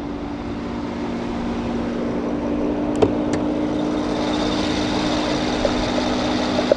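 Rolls-Royce Wraith's 6.6-litre twin-turbo V12 idling with a steady low hum that grows louder over the first few seconds, with two sharp clicks about three seconds in as the bonnet is released and lifted.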